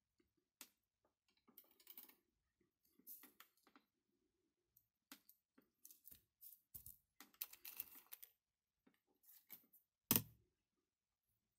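Quiet, scattered small clicks, taps and rustles as small electronic parts and hand tools are handled on a plastic-covered work surface, with one sharper knock about ten seconds in.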